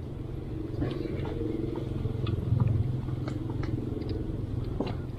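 A motor engine running steadily, its hum swelling about two and a half seconds in, with a few light clicks and taps over it.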